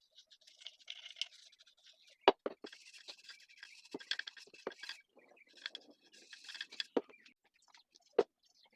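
Intermittent scraping and rustling with about five sharp knocks scattered through, the loudest a little over two seconds in and again near the end.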